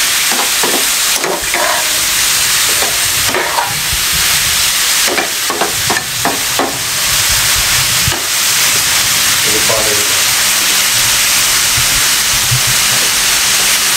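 Boneless chicken strips frying in hot oil in a metal pan with a steady sizzle, stirred with a flat metal spatula that scrapes and knocks against the pan now and then. The chicken is being fried until its colour changes.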